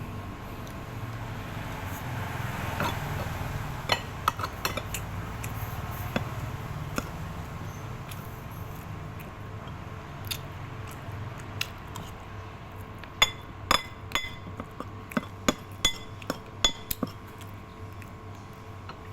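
Sharp clinks and knocks of kitchen utensils against cookware, scattered at first and then coming in a quick run of strikes near the end, over a low steady hum.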